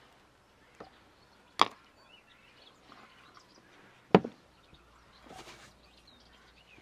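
Sharp knocks of a metal spoon against an enamel mixing bowl while eggs are stirred into flour: a small tap about a second in, then two loud knocks, the loudest a little past the middle.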